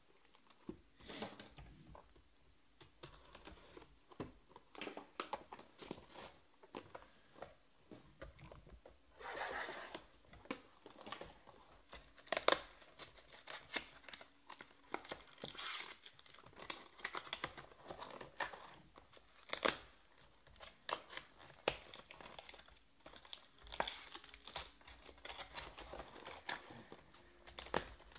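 Trading card packaging opened by hand: the cardboard box and foil wrappers tear and crinkle, with scattered sharp clicks and rustles as packs and cards are handled.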